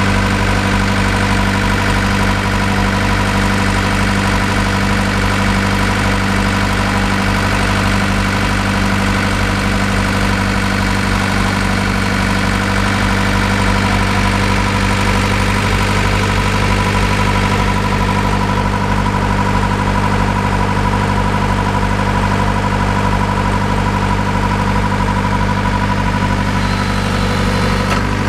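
Engine of a soil-probe drilling rig running steadily at a constant speed, with a steady high whine over it.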